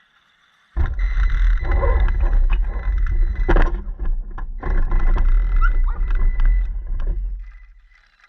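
Radio-controlled car running, with a loud rumble starting about a second in, a brief dropout around the middle, and a fade near the end.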